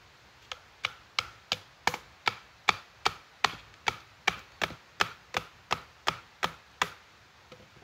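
Knife batoning: a wooden baton strikes the spine of a steel fixed-blade knife, an Esee Laser Strike, driving it down through a dense hardwood log. About eighteen sharp knocks come at a steady three a second, each with a brief metallic ring from the blade, and stop about seven seconds in.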